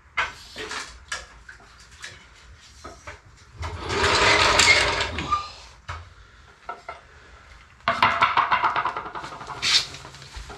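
Hand work on a motorcycle: clicks, clinks and scraping of tools and parts. There are two louder stretches of rasping, one about four seconds in and another around eight seconds in, the second a rapid run of ticks.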